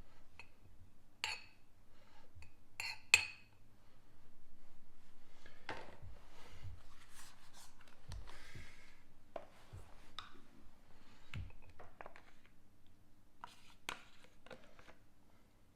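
A serving spoon clinking and scraping against a bowl as beans and rice are spooned in, with a few sharp clinks scattered through.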